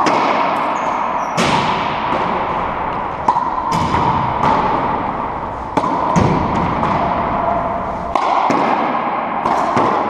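Racquetball rally on an enclosed court: the ball cracks off the racquets and the walls in a string of sharp, echoing hits, about ten in all.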